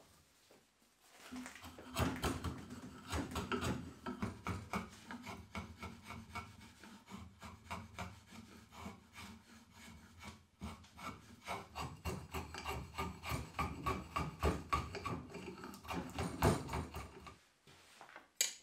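Hand-forged drawknife, made from an old file, shaving a wooden board in quick repeated pulls, each with a rasping scrape. The strokes stop shortly before the end, followed by one short sharp click.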